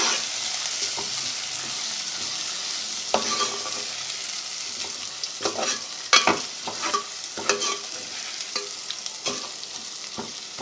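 Onions and ginger-garlic paste sizzling in hot ghee in a metal pot while a metal spoon stirs them, scraping and knocking against the pot now and then, more often in the second half. The sizzle slowly dies down.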